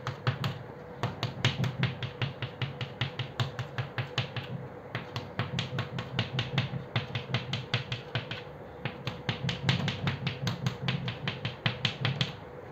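Chalk tapping and scraping on a blackboard as rows of small crosses are drawn quickly: rapid sharp clicks, several a second, in runs with brief pauses between rows.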